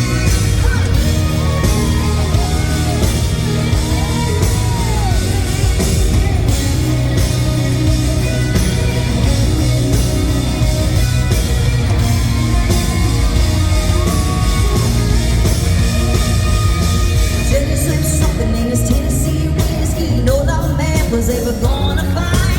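Live band playing a loud country-rock song with a woman singing lead, her sung notes sliding up and down over a heavy, steady bass.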